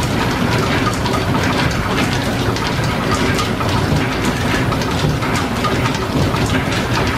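Belt-driven metal shaper running, with steady mechanical clatter and repeated sharp clicks from the stroking ram and the cutting tool. The tool head is being fed down by hand at a 45-degree angle, about 15 thousandths per stroke.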